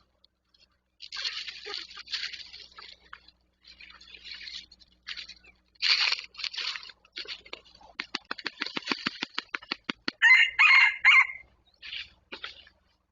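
Junglefowl rooster: rustling in leaf litter, then a quick run of wing beats about eight seconds in, then a short, loud crow.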